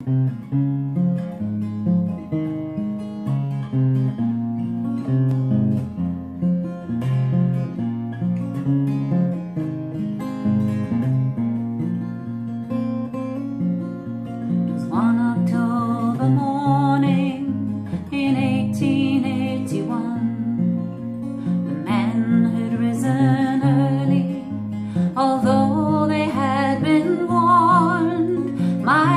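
Acoustic guitar playing a steady, repeating chord pattern as a song's introduction. About halfway through, a woman's singing voice joins, wavering with vibrato.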